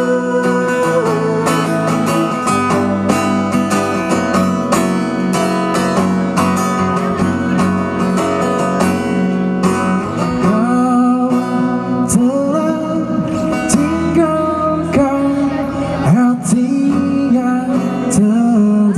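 Male voice singing to a strummed acoustic guitar, amplified through a stage PA. Busy strumming fills the first half; from about halfway, sung phrases slide up and down in pitch over the chords.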